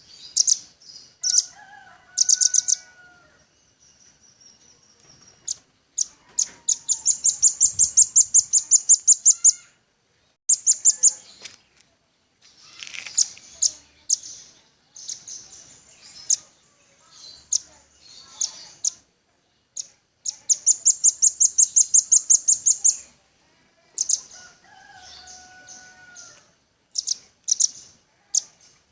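Velvet-fronted nuthatch (rambatan paruh merah) singing: rapid runs of sharp, high chattering notes at roughly ten a second, each run lasting a few seconds, with brief pauses and single chips between them.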